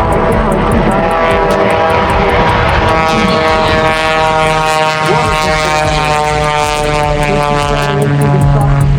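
Propeller airplane engine droning steadily, a stack of even tones with only slight shifts in pitch.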